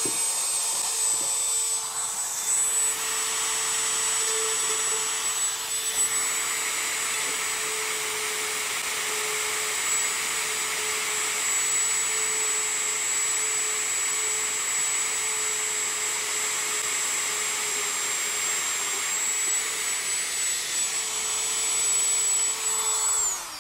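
Dremel-type rotary tool running steadily at high speed with a constant whine, spinning a stub of ABS 3D-printer filament that is pressed into a cracked ABS motorcycle fairing to friction-weld it. The whine winds down near the end.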